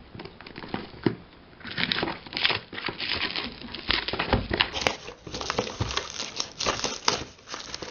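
Packaging crinkling and rustling, with some tearing, as a parcel is opened by hand.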